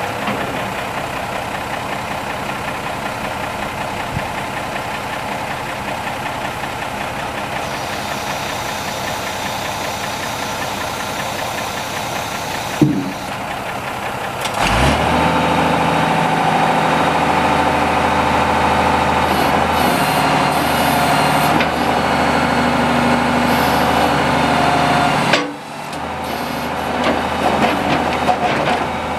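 Unimog FLU419 SEE's diesel engine running steadily, then working under load as the backhoe hydraulics move the boom. About 13 s in there is a sharp clank, and from about 15 s a louder steady whine and engine note take over, dropping away abruptly about 25 s in before picking up again.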